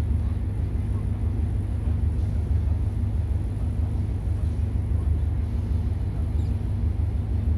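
Hunslet diesel shunting locomotive running as it moves slowly along the track: a steady low engine rumble with a constant hum.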